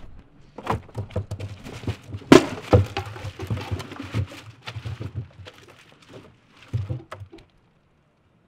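Rummaging through a trash can: a black plastic bin liner and paper bags rustling and crinkling, with repeated knocks and one loud thump about two seconds in. The sound stops abruptly about seven seconds in.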